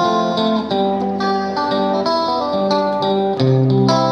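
Background music led by guitar: a run of held, chord-like notes that change every half second to a second.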